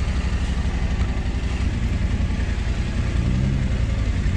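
Adventure motorcycle engine running at low revs, with a brief rise and fall in pitch about three seconds in.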